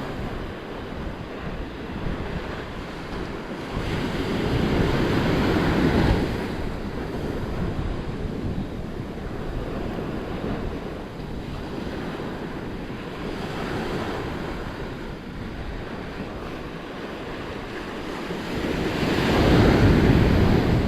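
Sea waves washing in, with wind buffeting the microphone; the wash swells louder about four to six seconds in and again near the end.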